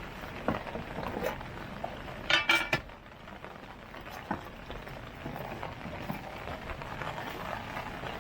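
Metal cookware and utensils clinking during outdoor cooking over a steady hiss. The loudest event is a quick run of sharp ringing clinks about two and a half seconds in, with a few lighter taps before and after.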